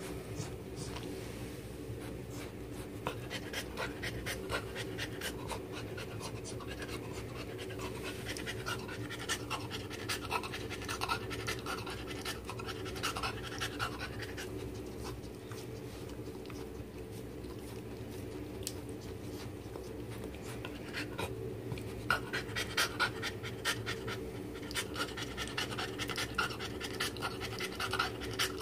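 Cocker spaniel panting, with quick soft clicks of its mouth that grow heavier in the last several seconds, over a steady low hum.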